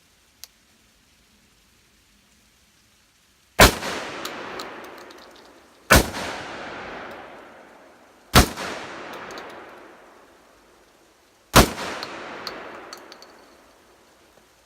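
Remington V3 Tac-13 semi-automatic 12-gauge shotgun fired four times, a few seconds apart, each shot trailing off in a long rolling echo. Light clicks come between the shots.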